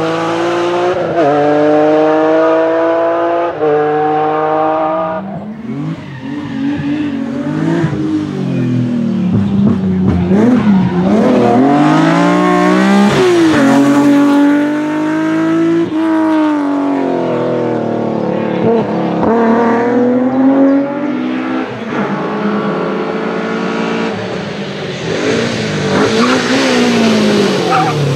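BMW rally car engine revving hard near the top of its range, shifting up through the gears several times, then easing off and picking up again as the car works through the stage.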